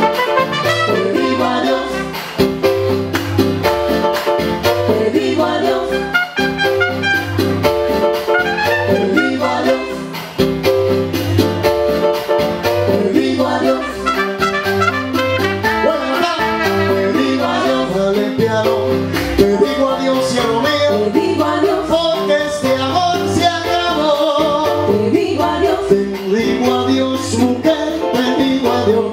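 Live Latin band playing an instrumental break: a trumpet carries the melody over an electronic keyboard and a steady, repeating bass line.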